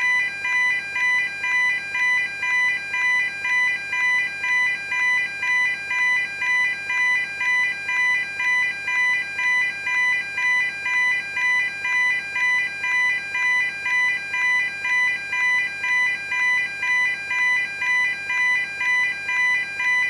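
Railway level crossing warning alarm: an electronic tone pulsing evenly about twice a second, steady and unchanging.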